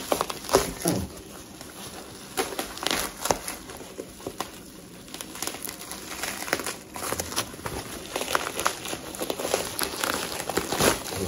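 Thick plastic bubble wrap being handled and pulled open by hand, crinkling with many irregular sharp crackles.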